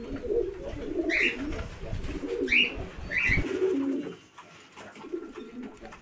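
Domestic pigeons cooing continually, with three short, high chirping calls from cockatiels in the first half.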